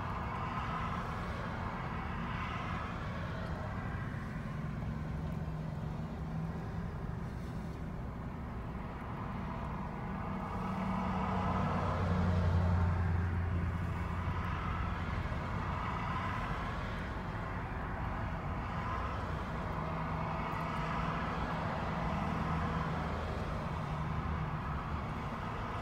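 Truck engine and road noise heard from inside the cab while driving slowly, a steady low hum that swells louder about halfway through and then settles.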